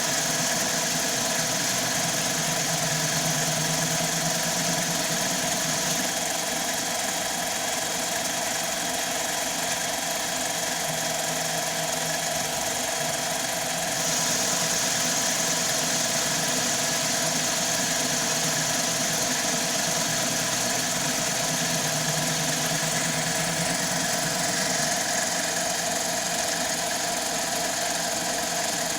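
CNC mini lathe running a ball-turning program, with the spindle and stepper-driven feeds turning steadily while a carbide tool cuts aluminum dry. A low hum comes and goes, and the high hiss grows brighter about halfway through.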